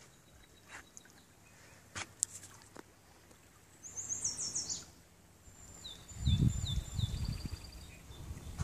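A songbird sings two short phrases of quick, falling high notes, the second ending in a brief trill. Low, irregular rumbling gusts of wind on the microphone come in after about six seconds and are the loudest sound.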